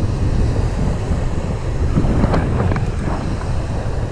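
Strong wind buffeting the microphone in a steady low rumble, with surf breaking on the beach underneath.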